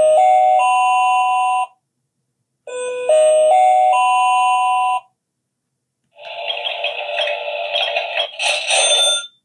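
Sound button in a Mini Brands Mini Mart toy's sign post, pressed repeatedly, playing its shuffled recorded sounds through a small speaker. A rising four-note electronic chime, like a shop-entrance doorbell, plays twice, then a different, noisier sound effect runs for about three seconds.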